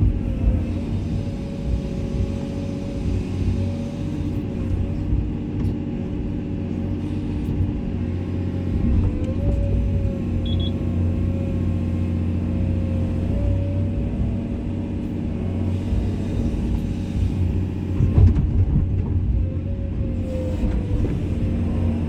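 Komatsu excavator's diesel engine running steadily under work, with a whine that dips and rises slightly as the machine is worked. A few knocks near the end.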